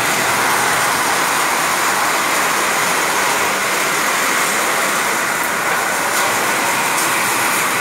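Heavy rain pouring down in a steady, loud rush.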